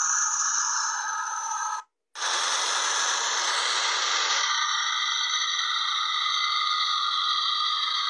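The Switchblade flying car's engine running steadily on the ground: a steady whine over hiss. The sound cuts out for a moment about two seconds in.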